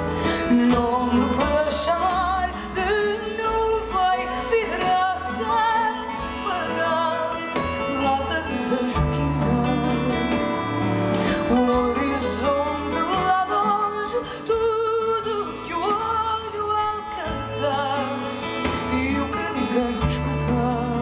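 A woman singing a slow song in Portuguese with vibrato, live through a microphone. A band backs her with guitars and steady bass notes.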